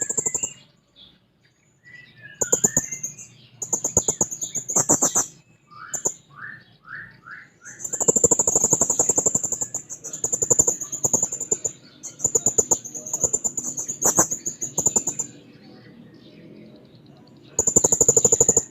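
Serindit (hanging parrot) calling in repeated bursts of rapid, very high-pitched pulsed trills, each lasting from about a second to several seconds. Around six seconds in there is a short series of lower, rising notes.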